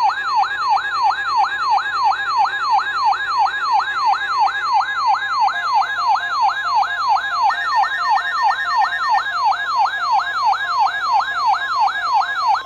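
Weather radio alert siren: an electronic tone sweeping up and down in pitch about three times a second, set off by the NOAA Weather Radio weekly test signal, cutting off abruptly at the end.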